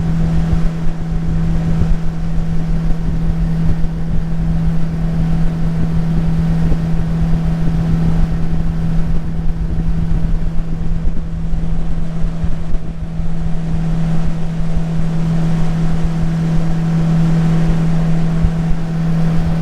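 Jet-drive outboard motor on a tunnel-hull jon boat running under way at a steady speed, holding one even drone. Wind buffets the microphone underneath.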